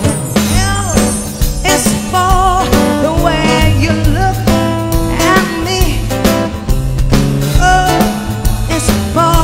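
Live band playing: a woman sings into a microphone over guitar and drums, with steady low notes underneath.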